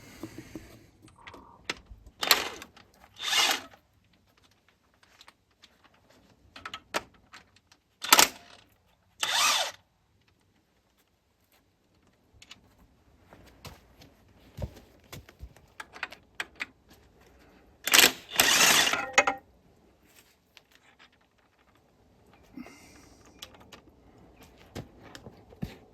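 Handheld power tool, likely a cordless impact wrench or drill, running in three pairs of short bursts to remove bolts from the engine's oil pump, with faint metal clinks between the bursts.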